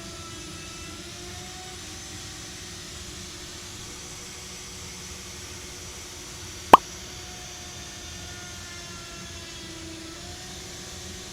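Festool router on a slab flattening mill running steadily as it surfaces a burr oak slab, its whine wavering slightly in pitch under load. A single sharp click, the loudest sound, about two-thirds of the way through.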